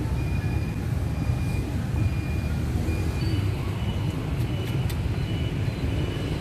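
Steady low outdoor rumble, with faint short high-pitched tones coming and going and a few light clicks about two-thirds of the way through.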